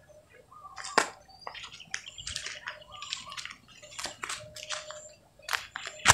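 Water splashing and sloshing in irregular bursts, with one sharp splash about a second in.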